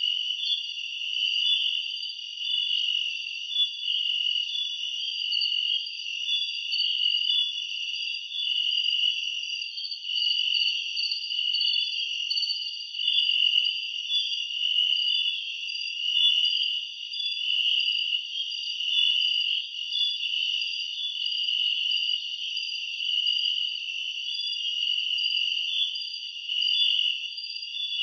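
Steady, high-pitched night chorus of calling insects, dense and pulsing, with nothing low underneath.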